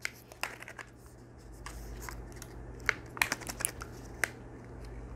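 Plastic Kinder egg shell and its packaging being handled by hand: a string of small sharp plastic clicks and taps with light rustling, the clicks coming thicker and louder in the second half.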